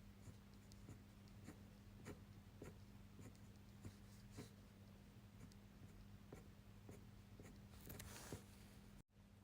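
Faint scratching and light ticks of a 0.4 mm fineliner making short strokes on paper, about two a second, with a longer scratchy stroke near the end.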